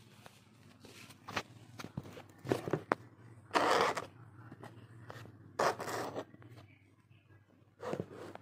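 Handling noise as a phone camera is moved about and set down on a wooden desk: a string of small clicks and knocks with several scraping rubs, the longest about three and a half seconds in and others near six and eight seconds.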